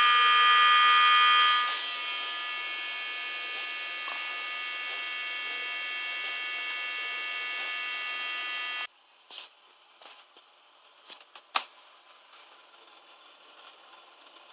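Electric buzzer sounding one steady, shrill tone that drops in loudness with a click about two seconds in, then cuts off suddenly near nine seconds. A few sharp clicks follow.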